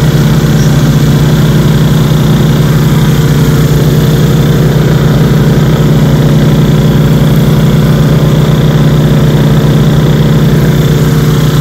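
Steady loud drone of two Honda EU2000i inverter generators running in parallel, carrying a 2-ton central air conditioner, with a steady electrical hum from the General Electric transformer they feed. The sound grows a little louder about as it begins.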